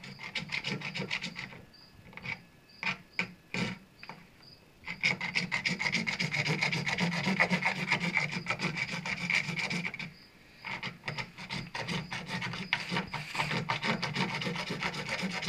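A loose saw blade rasping back and forth across PVC pipe in quick strokes, scoring a starting groove at the cut mark. Short, halting strokes at first, then about five seconds in it settles into steady sawing, with a brief pause about ten seconds in.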